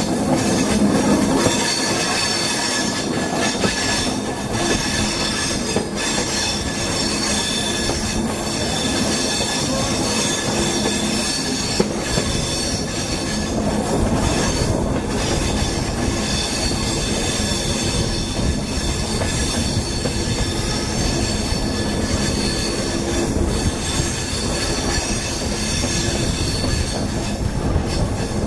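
Passenger train of LHB coaches running through a curve, heard from an open coach doorway. The wheels rumble steadily on the rails under a continuous high squeal of wheel flanges against the curved track.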